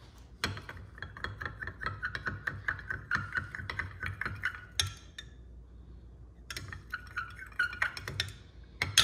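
A thin metal stir stick clinking and scraping rapidly against the inside of a glass measuring cup while stirring liquid soft plastic, with a light glassy ring. It stops for a moment about five seconds in, resumes for a couple of seconds, then gives one sharper knock near the end.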